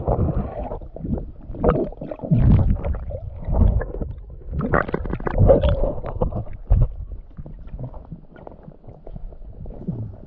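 Muffled underwater gurgling and sloshing from a submerged camera as a swimmer moves below the surface, in irregular bursts with bubbling.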